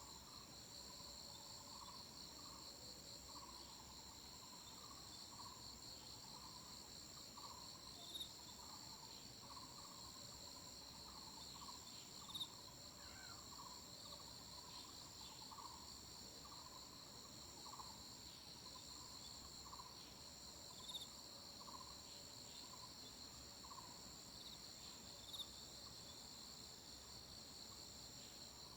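Insects trilling in chorus, several steady high-pitched trills layered over one another. Underneath, a lower chirping note repeats a little faster than once a second.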